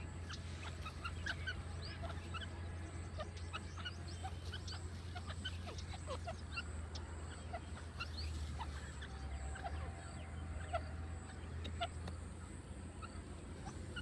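Grey francolins giving many soft, short call notes, scattered and overlapping, over a steady low hum.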